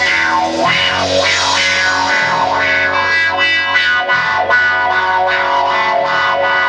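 Live rock band playing: distorted electric guitar over bass guitar and drums, with a harmonica played cupped against a handheld microphone.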